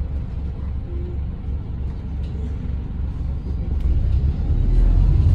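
Low rumble of a Volvo B5TL double-decker bus's diesel engine and running gear, heard from inside the passenger cabin. The rumble grows louder about four seconds in.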